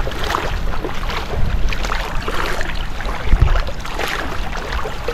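Water sloshing and splashing irregularly as a person wades through shallow seawater dragging a fishing net, over a low rumble of wind on the microphone, with one heavier low thump a little past three seconds in.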